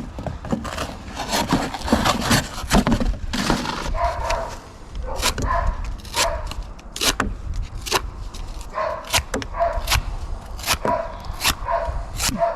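A dog barking in short calls, many times from about four seconds in, over sharp scraping and tearing sounds from a pocket knife cutting through cardboard.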